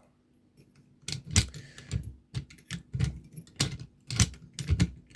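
Metal clicks and rattles from an ELZETT lever lock and its keys being handled: irregular sharp clicks, about two or three a second, starting about a second in.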